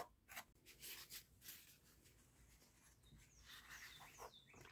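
Faint scraping of a metal spoon against an aluminium pan, stirring potassium nitrate and dextrose rocket fuel as it melts on a hot plate: a few short strokes, then a longer rub with light squeaks near the end.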